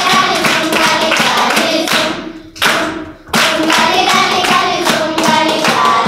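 A group of children singing together and clapping their hands in rhythm, breaking off briefly about two seconds in before starting again.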